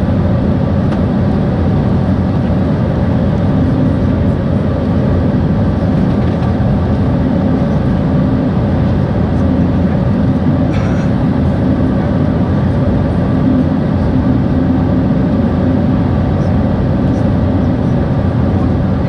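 Steady cabin noise in cruise aboard an Embraer 190: a constant rush of airflow with the hum of its GE CF34 turbofan engines, heard from inside the cabin.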